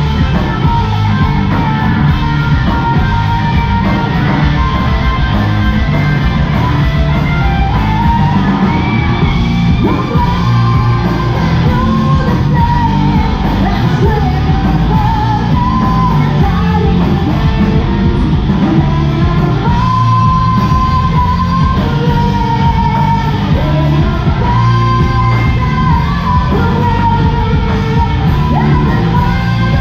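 A live rock band playing loud, electric guitars, bass and drums, with a woman singing over it. The sound has the boom of a large room.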